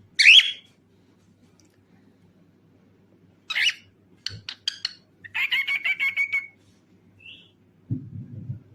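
Cockatiel calling: a loud sweeping call at the start, another call about three and a half seconds in, then a quick run of short chirps leading into a rapid warbling trill. A soft low rustle comes near the end.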